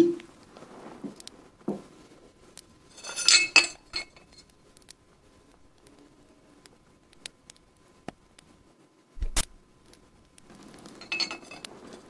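Glass vessels and herbs handled by hand: scattered light clinks and taps, a brief crackly rattle about three seconds in, and a soft thump with a click about nine seconds in.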